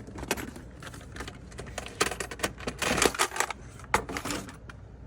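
Irregular clicking and clattering of hand tools and small metal and plastic parts being handled while taking apart the carburetor and air filter area of a golf cart engine, busiest in the middle.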